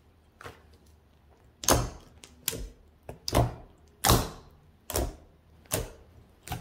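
Hands pressing and squeezing a large mass of thick, glittery slime, making about eight sticky squelching pops a little under a second apart as air pockets are pressed out.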